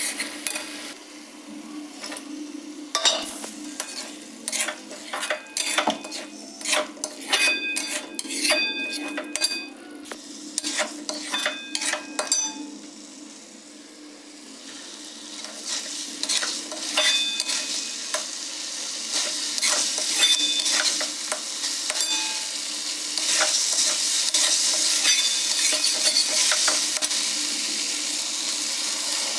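A metal spoon clinking and scraping against a cooking pan as food is stirred, with sizzling in hot oil. The clinks come thick and fast in the first half; the sizzle grows louder after the middle, with only a few clinks over it.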